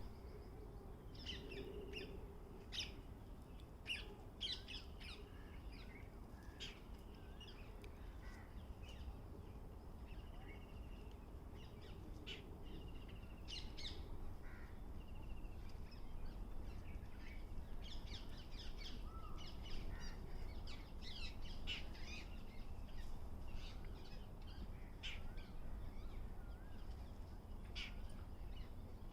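Birds calling in a forest: many short chirps and harsher calls, overlapping and spread throughout, over a faint steady high tone and a low rumble.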